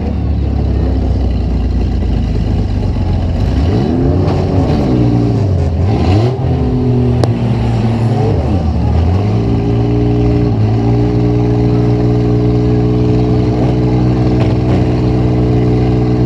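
Demolition derby car's engine heard from inside the car, running steadily, then revved up and down several times in quick succession from about four seconds in, before settling back to a steady speed. A couple of brief clicks come through during the revving.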